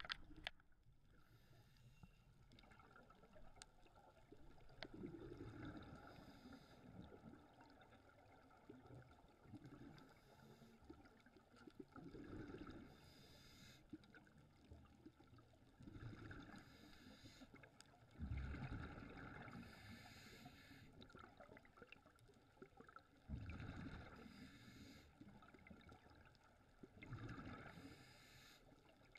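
Faint underwater sound of a scuba diver breathing through a regulator: a hiss on each inhale and a burst of exhaled bubbles, repeating every few seconds. A sharp knock at the very start.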